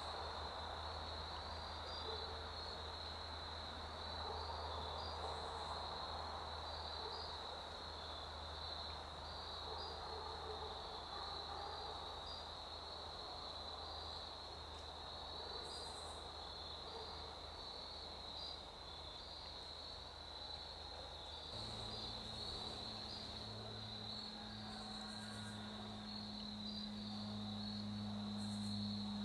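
A faint, steady chorus of crickets trilling in the woods, pulsing at an even rate. A low, steady hum comes in about two-thirds of the way through.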